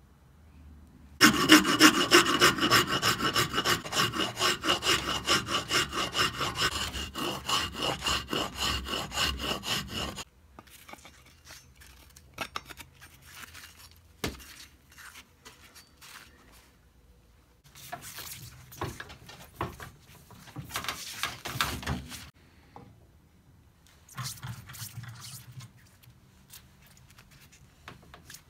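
A hickory axe handle being shaped by hand with a cutting tool, worked in quick, rhythmic back-and-forth strokes. There is one long, loud run of strokes, then a pause with a few clicks, then two shorter, quieter runs.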